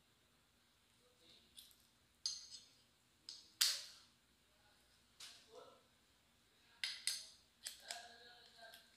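Brass pressure-washer quick-connect coupler and metal nozzle lance being fitted together by hand: a series of sharp metallic clicks and clinks, the loudest about three and a half seconds in.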